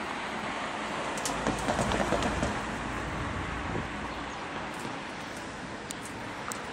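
Road traffic noise with a low rumble of a passing vehicle swelling and fading between about one and four seconds in.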